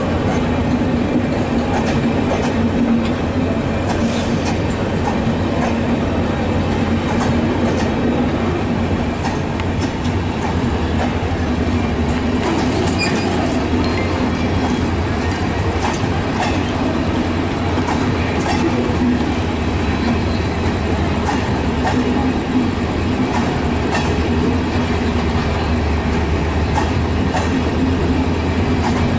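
Bangladesh Railway intercity passenger coaches rolling past at slow speed, a steady rumble with the wheels clicking over the rail joints.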